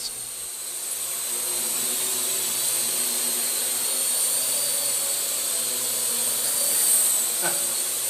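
Parrot AR.Drone 2.0 quadcopter's four electric motors and propellers buzzing steadily as it hovers, with a high-pitched whine on top.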